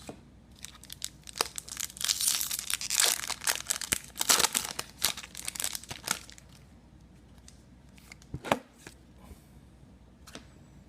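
A trading card pack's wrapper being torn open and crinkled, a dense crackling stretch in the first half, followed by a couple of sharp handling clicks as the cards come out.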